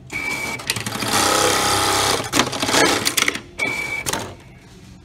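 Programmable industrial pattern sewing machine running a sewing cycle on a clamped part. A brief high whine comes in at the start, then a loud fast run of stitching from about one to two seconds in, followed by clattering clicks. A second brief high whine comes near the end before it stops.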